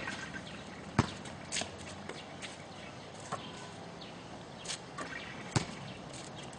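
Basketball bouncing on an outdoor hard court: two loud bounces, about a second in and again near the end, with lighter taps and shoe scuffs between.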